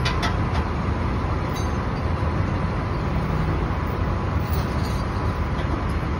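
A vehicle engine idling steadily with a low rumble. A few faint light clicks of metal come through over it.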